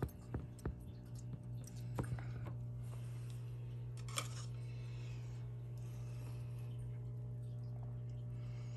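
A steady low electrical hum with light clicks and taps, most of them in the first two or three seconds and one sharper click about four seconds in, typical of metal feeding tongs knocking against a glass terrarium.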